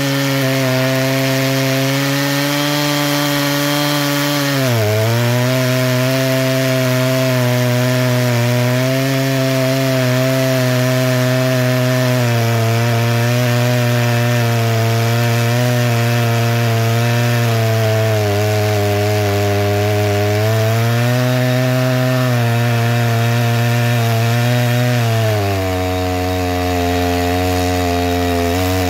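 Two-stroke G272 clone chainsaw with a 36-inch bar and full-chisel chain, running at full throttle while cutting a large green hardwood log. Its engine pitch sags briefly about five seconds in, then drops and stays lower for the last few seconds as the bar loads up in the cut.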